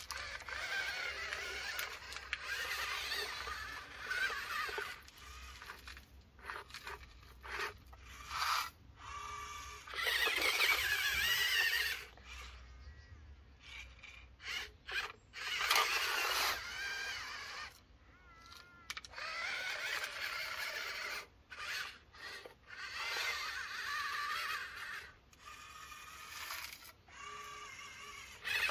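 Small electric motors and gearboxes of radio-controlled construction models whining in repeated bursts of one to three seconds, the pitch wavering as the motors speed up and slow down.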